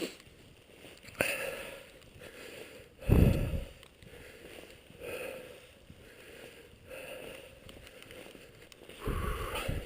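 Footsteps crunching through deep snow, slow steps about every two seconds, with a louder low thump about three seconds in.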